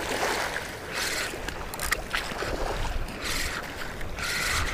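Shallow salt water sloshing and lapping in short hissy bursts, about one a second, over a low wind rumble.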